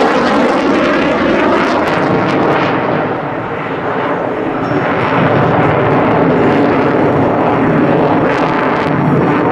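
Dassault Rafale fighter jet's engines during a solo aerobatic display: a loud, steady rush of jet noise that dips slightly about three seconds in and swells again as the jet pulls through a loop.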